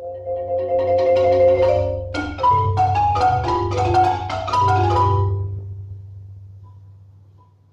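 Concert marimba played with mallets: held, rolled notes swell for about two seconds, then a sharp strike opens a run of quick notes across the bars, and the last notes ring out and fade away over the final two seconds.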